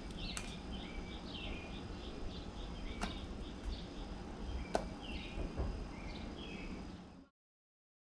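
A few sharp taps of a blue jay's beak pecking at seed in a plastic feeder dish, over a steady background of short high chirps repeating a few times a second. All sound cuts off suddenly near the end.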